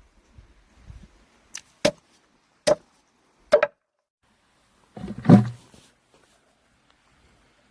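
A small axe chopping into wild kudzu root: four sharp separate chops in the first few seconds, then a heavier, deeper blow about five seconds in.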